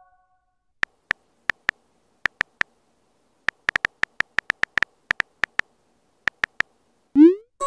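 On-screen phone keyboard key clicks: a quick, uneven run of short ticks as a message is typed. Near the end comes a short, louder rising swoosh as the chat message is sent.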